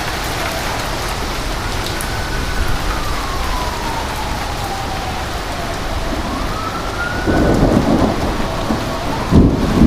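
Thunderstorm: steady heavy rain and wind noise, with a distant siren wailing slowly up and down. About seven seconds in, thunder rumbles in, loudest near the end.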